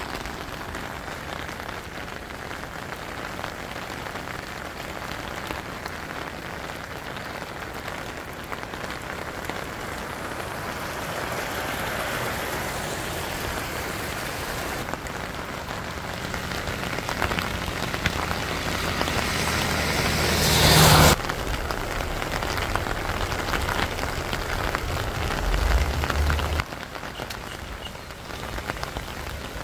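Steady heavy rain falling on a wet road and lawn, an even hiss throughout. About two-thirds of the way in a louder rush with a low hum builds up and cuts off abruptly, and a lower hum stops suddenly a few seconds later.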